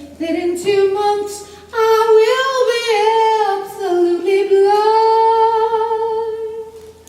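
A woman singing unaccompanied: a short phrase, then one long sustained note held for several seconds, dipping in pitch once before it fades near the end.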